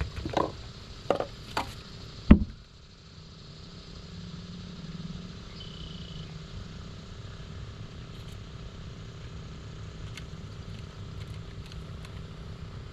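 A few knocks and clatters from handling fishing gear, the loudest a sharp knock a little over two seconds in, followed by a steady low motor hum.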